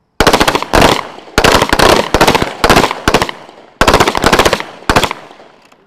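Rapid 9 mm pistol fire from several M18 service pistols shot at once along a firing line: dense, overlapping shots in clusters with ringing tails. The firing starts just after the beginning and stops about a second before the end.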